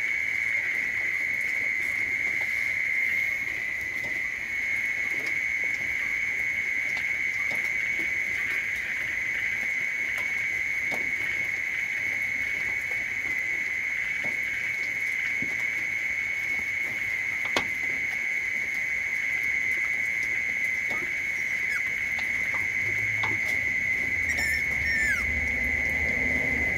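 A steady, high-pitched insect chorus that keeps up without a break. A single sharp click comes about two-thirds of the way through, and a few short squeaks come near the end.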